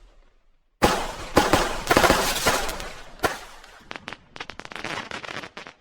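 A string of firecrackers going off: a dense rapid crackle starts suddenly about a second in, then thins to scattered separate pops near the end.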